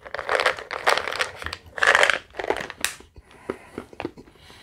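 Chewable Tums antacid tablets rattling in their plastic bottle as they are tipped into the mouth, then crunching as they are chewed. The crackly rattle is dense for about the first two seconds, then thins to scattered crunches.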